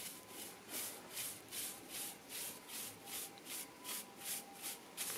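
A stiff-bristled push broom sweeping concrete paving in short, quick, scratchy strokes, about two to three a second.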